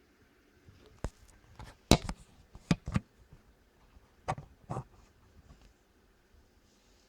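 A series of about seven sharp clicks and knocks of computer hardware being handled, the loudest about two seconds in.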